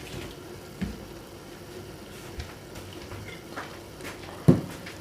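Vegetables and fish balls simmering in a pan of sauce and a little water, a steady low bubbling, with a few short knocks; the loudest comes about four and a half seconds in.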